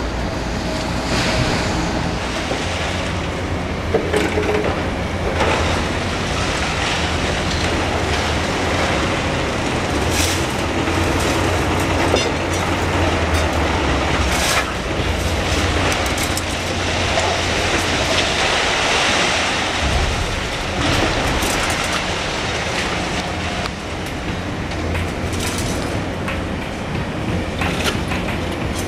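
Liebherr demolition excavators' diesel engines running steadily, with scattered sharp cracks and knocks of concrete being crushed and broken by their hydraulic jaws. The low engine drone eases about two-thirds of the way through.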